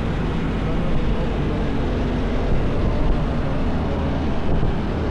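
Vespa Primavera 125 scooter running steadily while riding, its single-cylinder engine note mixed with wind and road noise.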